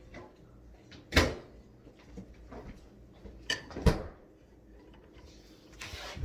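A few knocks of things being handled: one about a second in and two in quick succession near four seconds.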